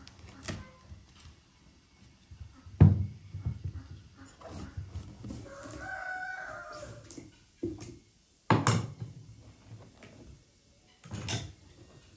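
Large kitchen knife cutting into a raw pumpkin, with several sharp knocks of the blade through the rind and onto the wooden board, the loudest about three seconds in. A rooster crows in the background for a few seconds around the middle.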